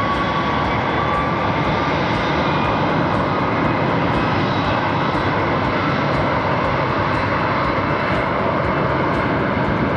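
Jet airliner engines running at high power in a loud, steady rush of noise, with a faint whine that rises slightly in the first couple of seconds.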